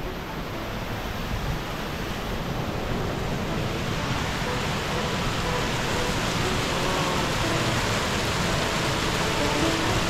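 Pistyll Gain waterfall and the rocky stream below it rushing: a steady wash of falling water that grows slightly louder.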